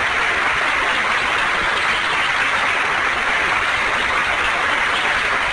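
Steady applause, many people clapping at once in a dense, even patter.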